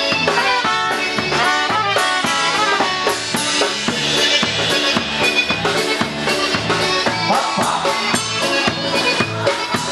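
Live polka band playing: trumpets carrying the tune over a drum kit's steady beat with rimshots and bass drum.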